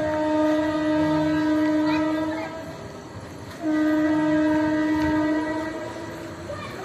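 Locomotive horn of a departing Indian Railways express train, sounding two long blasts about a second apart.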